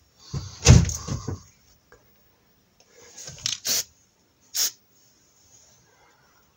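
Copper grease being applied to the bolted joints of a driveshaft's centre bearing bracket: a rubbing, handling noise about a second in, then short hissing bursts at about three and a half and four and a half seconds.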